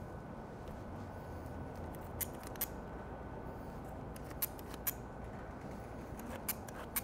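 Pistol-grip meat injector being pumped: three pairs of sharp mechanical clicks from the trigger, a little under half a second apart within each pair, over a low steady hum.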